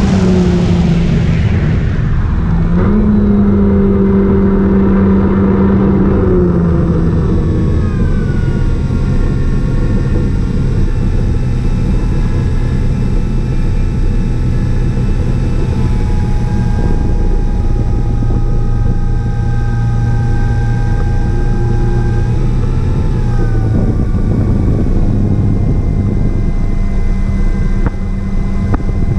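Electric motor and propeller of a radio-controlled Carbon-Z Cessna 150 float plane running in flight, heard from a camera on board. The pitch steps up and down several times as the throttle changes.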